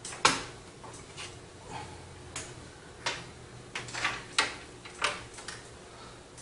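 SATA cables and their plastic connectors handled and routed inside a PC case: irregular clicks, taps and rustles, the sharpest knock just after the start.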